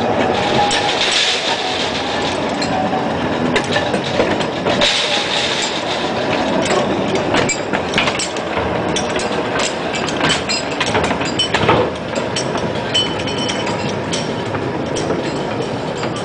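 Narrow-gauge mine cars and a 1926 Whitcomb storage battery locomotive rolling along the rails: a steady rumble of steel wheels on track, broken by frequent clicks and clanks from the wheels and couplings.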